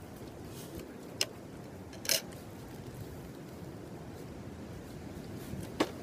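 Three short, sharp clicks over steady background noise: one about a second in, a slightly longer one about two seconds in, and one near the end.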